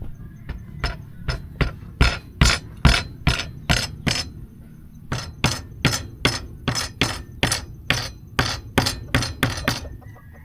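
Repeated sharp knocks, about two or three a second, with a brief pause a little before halfway: a raw cashew nut being struck to crack open its shell.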